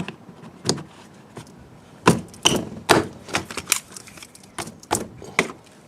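A run of sharp clicks and knocks, about a dozen, as a door speaker is worked back into place in a car door. They come thickest from about two to four seconds in.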